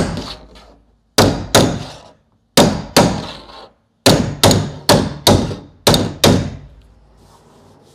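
Body hammer striking a flat body spoon held against a car door's sheet-metal skin: about a dozen sharp blows, mostly in pairs, each with a short ring. The blows knock down a high crown in the panel over a brace.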